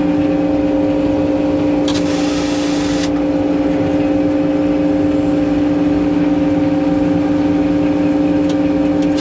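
An engine running at a steady speed with an even drone. A brief hiss cuts in about two seconds in and lasts about a second.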